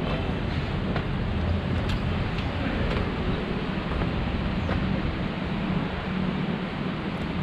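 A motor vehicle engine running steadily, a low hum under an even rushing noise.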